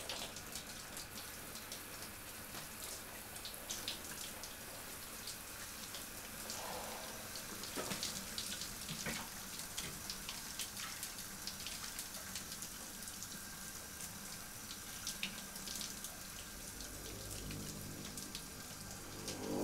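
Shower running, water spraying and spattering into the tub with scattered drips and splashes. A low swell rises near the end.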